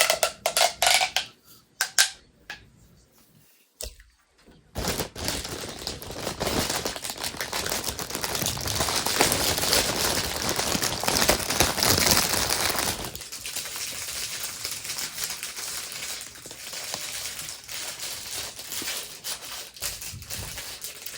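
Plastic fidget toys being handled: a few sharp clicks near the start, then several seconds of dense plastic crackling that grows fainter about two-thirds of the way through. The toys include a ribbed plastic pop tube that is being stretched and squashed.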